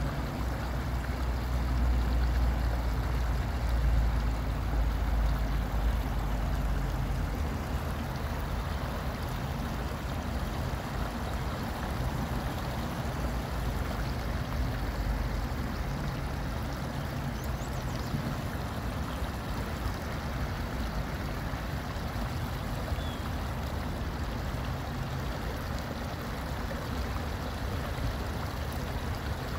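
Water trickling steadily over a small rock cascade into a pond, with a low rumble during the first several seconds.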